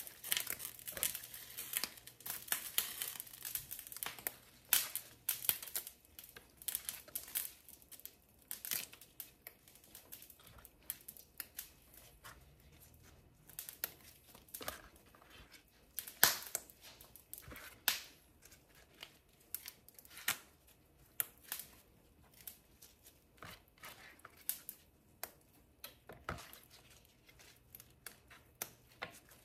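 Knife cutting through rolled-up sweet potato leaves and stems: irregular crisp cuts and knocks, a few a second, with the leaves crinkling.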